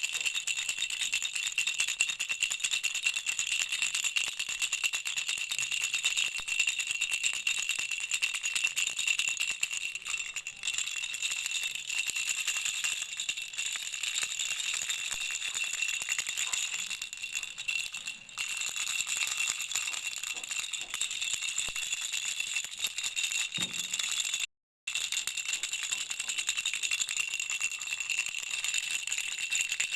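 Baby rattle shaken continuously, a dense rattle with a steady high ringing over it. It breaks off completely for under a second about twenty-five seconds in, then carries on.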